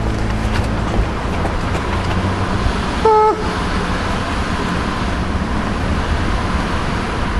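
Steady outdoor road-traffic noise with a low rumble, and one short car-horn toot about three seconds in.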